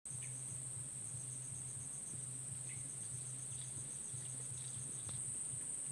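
Insects chorusing: a steady high-pitched drone with trains of rapid, evenly pulsed chirps just below it, and a faint low hum underneath.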